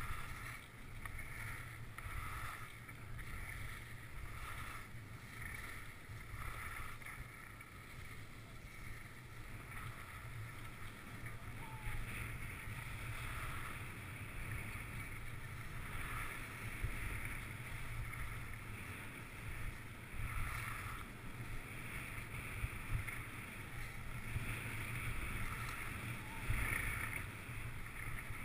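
Skis hissing and scraping over packed snow, swelling with each turn every second or two, over a low wind rumble on the microphone.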